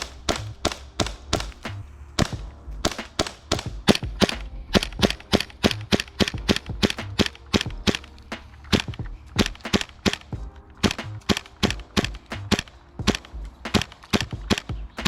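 HPA-powered KC-02 airsoft rifle firing rapid semi-automatic shots, a long string of sharp pops at about three to four a second, unevenly spaced.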